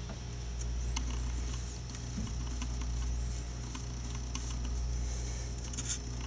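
Scattered light clicks and taps of a paintbrush dabbing weathering paint onto a plastic scale-model car body, over a steady low hum.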